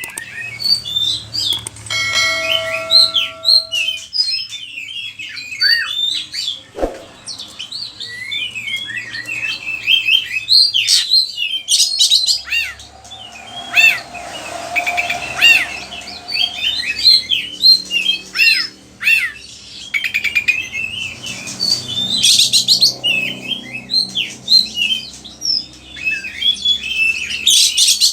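Oriental magpie-robin (kacer) singing a fast, unbroken song of varied chirps, whistles and rapid trills, packed with mimicked phrases from other birds. A brief steady tone is held about two seconds in.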